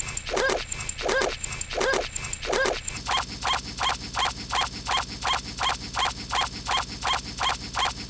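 A short rising-and-falling sound repeats about every two-thirds of a second. About three seconds in it gives way to an inkjet printer printing, its print head sweeping in an even rhythm of about three passes a second.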